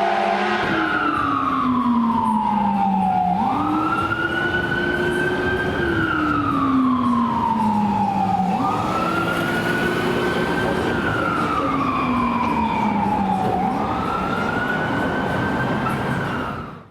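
Rosenbauer electric fire engine's siren on a slow wail: each cycle rises quickly, holds, then falls over a couple of seconds, repeating about every five seconds, with a lower tone moving in step beneath it.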